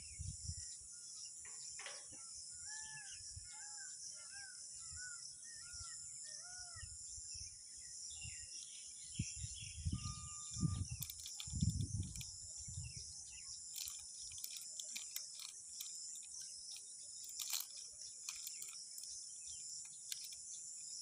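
Outdoor ambience: a steady high-pitched insect drone throughout, with a bird singing a run of short, arched whistled notes in the first several seconds. A few low thumps come about halfway through, followed by scattered faint clicks.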